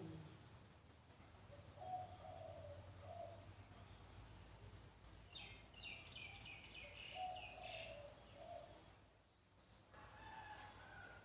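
Faint birds calling: short low notes repeated a few seconds apart, with a run of higher chirps in the middle, over a steady low hum.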